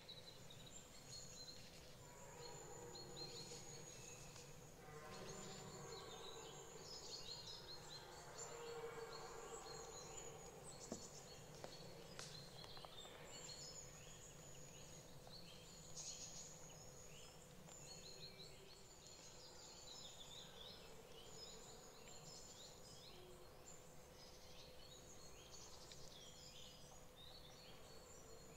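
Faint woodland ambience: small birds chirping and calling throughout, with two long, distant red deer stag bellows in the first nine seconds of the rut.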